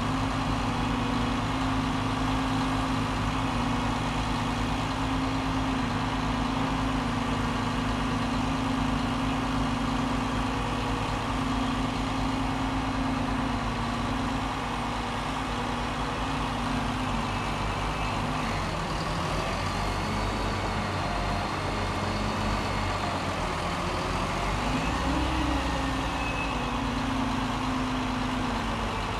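Mobile cranes' heavy diesel engines running steadily as they hold and shift a suspended railway passenger car. The engine note changes pitch about two-thirds of the way through as the load is moved.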